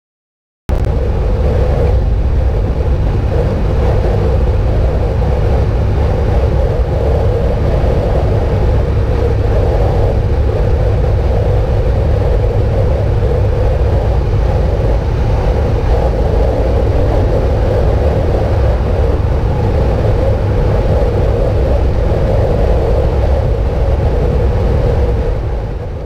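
Steady in-cabin road noise of a car cruising at freeway speed: a low rumble of tyres and engine with a steady drone, starting abruptly just under a second in.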